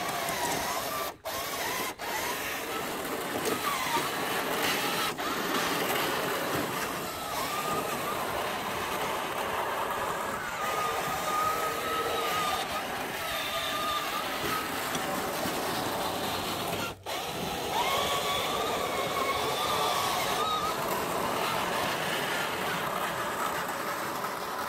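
Electric drive motors and gearboxes of a 1/6 scale remote-control M5 Stuart tank whining under the clatter of its tracks as it drives and turns. The whine wavers up and down in pitch, and the sound briefly cuts out a few times.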